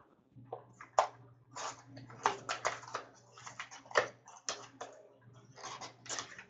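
Hockey card pack opened by hand: the wrapper crinkles and tears in a run of short crackles, with sharper snaps about a second in and again about four seconds in, over a low steady hum.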